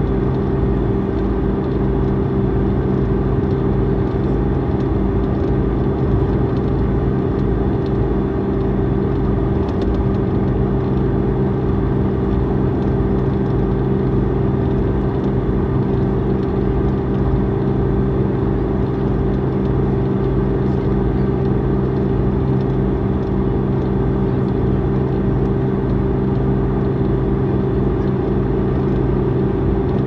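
Iveco Midirider bus with its Iveco Tector 6 six-cylinder diesel running steadily at an unchanging engine speed.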